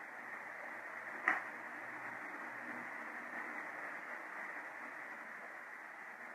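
Steady hiss of background noise, with a single sharp click about a second in.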